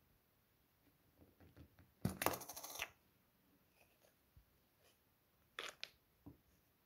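Plastic cap of a vitamin tablet tube being worked open: a quick run of rattling plastic clicks about two seconds in, lasting under a second, then two or three sharp plastic clicks a few seconds later.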